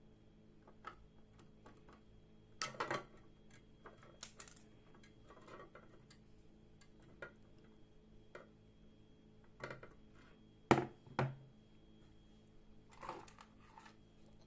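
Hard objects being handled on a work surface: scattered light clicks and clinks, a louder rattle about three seconds in and two sharp knocks about eleven seconds in, over a faint steady electrical hum and high whine.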